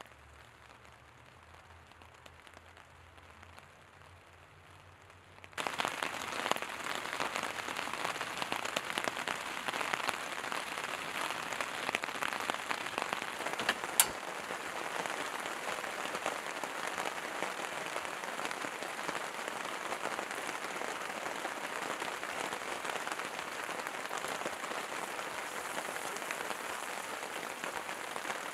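Faint background at first. About five seconds in, oil starts sizzling and crackling steadily in a hot cast-iron skillet on a camp stove, and there is one sharp click about halfway through.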